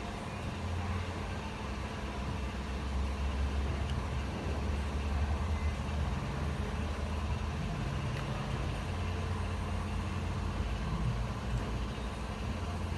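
A steady low rumble with an even hiss over it, from a running motor or machine.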